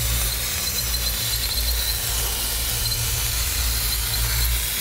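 Steady, loud hiss of a spark sound effect, with a low hum underneath.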